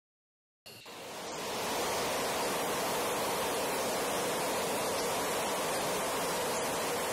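Fighter jet engine running in full afterburner on a ground run, a dense steady rush of noise. It starts suddenly about half a second in, swells over the next second, then holds steady.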